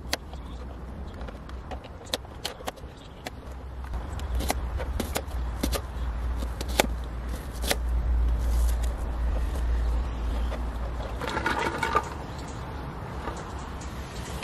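Kitchen knife chopping garlic cloves and then an onion on a cutting board: irregular sharp taps as the blade strikes the board. A low rumble swells up under the chopping in the middle and fades near the end.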